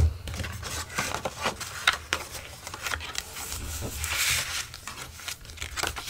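A glued strip of scrapbook paper being folded up and pressed by hand: papery rustling with scattered small clicks and taps, and a short scuffing rub about four seconds in.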